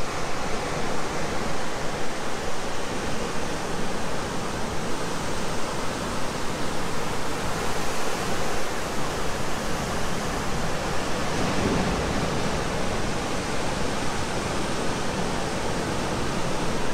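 Heavy surf breaking and churning in white foam against the base of a sea cliff, heard from above as a steady rushing noise.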